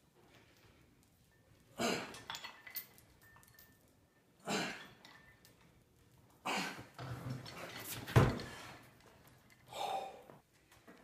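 Heavy chain wrapped around a log rattling and clinking in short bursts every two to three seconds as the log is pressed overhead, then a heavy thud about eight seconds in as the weighted log comes down to the floor.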